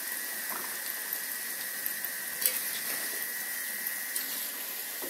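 Wheat-flour cookie dough deep-frying in hot oil in a wok: a steady sizzling hiss with a few small crackles.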